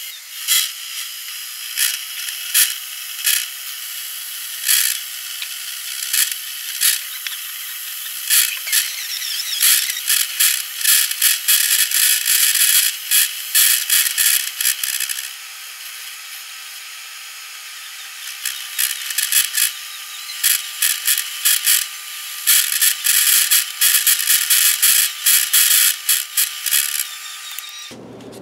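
Atlas 618 lathe taking a slow facing cut across the back of a four-jaw chuck: the tool bit cutting the spinning metal with a high-pitched scratchy hiss full of irregular sharp ticks. It eases off for a few seconds in the middle and cuts off just before the end.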